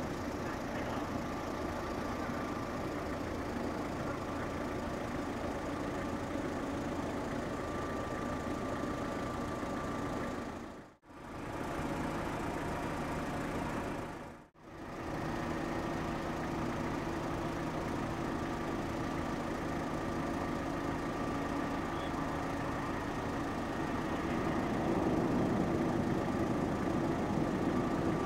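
Large car ferry's machinery running with a steady low engine hum and faint steady tones as the ship berths. The sound dips out briefly twice, and it grows a little louder near the end.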